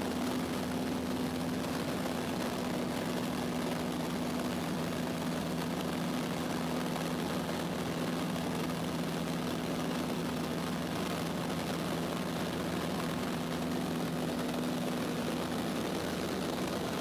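Cessna 152's Lycoming O-235 four-cylinder engine and propeller droning steadily in flight, heard from inside the cabin with an even wash of air noise.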